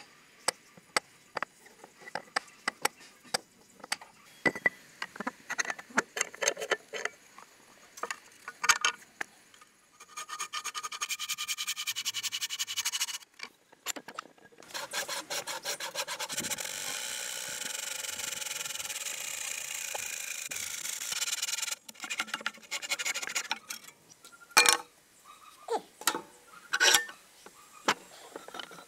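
Hand saw cutting a block of red hardwood clamped upright in a vise: a short run of fast strokes about ten seconds in, then about seven seconds of steady sawing. Before and after, scattered clicks and knocks of wood and tools being handled, with a few sharp knocks near the end.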